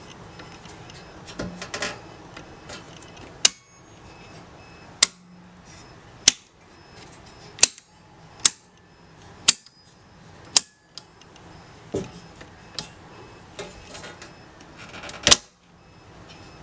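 Circuit breakers in a home breaker panel being switched one after another: a string of about a dozen sharp snapping clicks, roughly one a second, with the loudest near the end.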